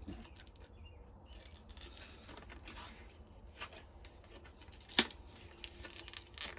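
Faint scratching and handling noises of small parts and tools on a workbench, with a single sharp click about five seconds in, over a steady low hum.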